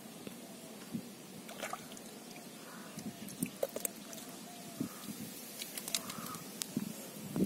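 A hand sloshing and squelching in a shallow hole of muddy water, with scattered small splashes and wet clicks.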